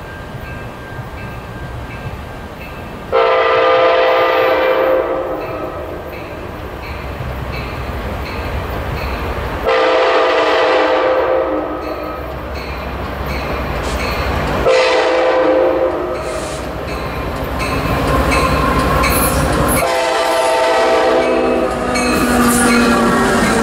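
Amtrak locomotive horn sounding the grade-crossing signal, two long blasts, a short one and a final long one, as the train approaches the crossing. A railroad crossing bell rings steadily underneath, and the train's running rumble builds near the end.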